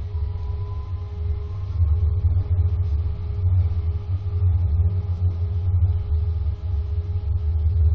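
Vienna–Baden interurban tram running along a city street, heard from inside the car: a steady low rumble from the wheels and running gear with a steady hum over it, getting louder about two seconds in.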